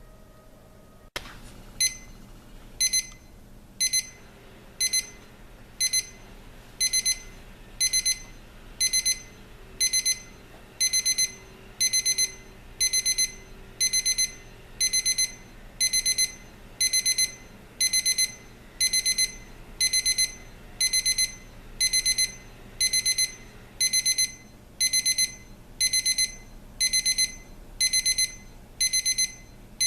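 Crosley 33818 battery alarm clock's electronic alarm going off: a high-pitched beep burst about once a second, the bursts growing longer a few seconds in. A click comes just before the beeping starts.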